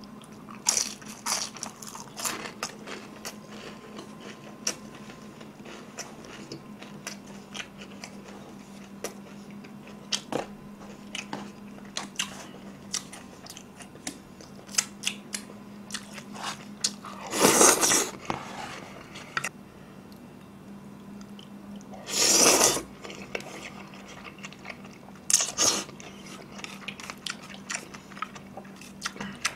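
Close-miked chewing and crunching of battered, fried sticky-rice sweet-and-sour pork, with two longer, louder slurps of black bean noodles in the second half.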